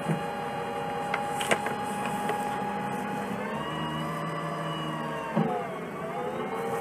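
Cummins C Gas Plus natural-gas engine of an Orion 07.501 transit bus running with a steady whine and a few light clicks. About three and a half seconds in its pitch rises and holds. It then drops with a thump about five seconds in and settles back to the earlier whine.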